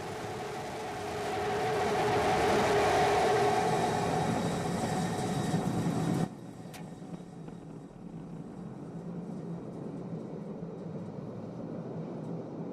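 Starship SN15 prototype's Raptor rocket engine firing for the landing burn: a loud roar that swells over the first few seconds, then cuts off suddenly about six seconds in, leaving a quieter steady rumble.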